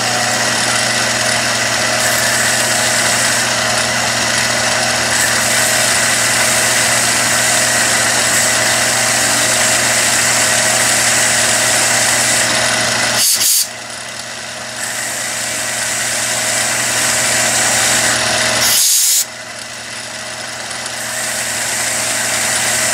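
Billiard cue lathe motor running steadily with a hand-held tip tool against the spinning leather cue tip, shaping and scuffing it. The sound drops abruptly twice, about 13 and 19 seconds in, and builds back up each time.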